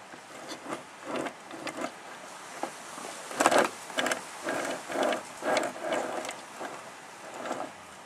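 Sliding-door hinge of a Toyota Tarago van, its rubber roller rolling and knocking along the metal door track as the door is moved: a run of irregular knocks and short rumbles, loudest about three and a half seconds in.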